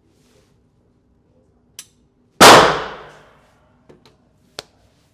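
A single loud pistol shot about two seconds in, its bang ringing out in a reverberant tail for about a second, with a few small sharp clicks before and after it.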